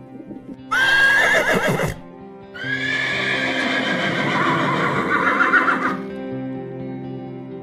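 Horse whinnying twice: a short whinny about a second in, then a longer, wavering one lasting about three seconds, over steady background music.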